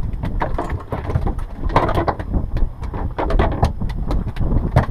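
Irregular knocks, clicks and clatter of gear being handled on a small fishing boat, over a steady low rumble of wind on the microphone.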